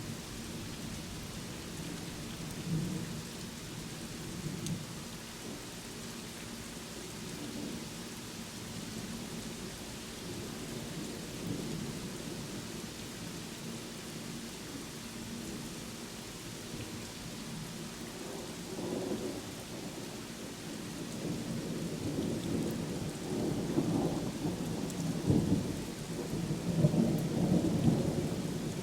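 Steady rain with thunder rumbling low underneath. The rumbling swells in the second half and grows louder toward the end.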